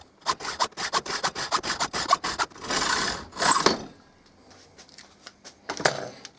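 Hacksaw cutting through a threaded metal bolt held in a clamp: a run of quick rasping strokes, then two longer strokes, after which the sawing stops about four seconds in. A couple of faint strokes follow near the end.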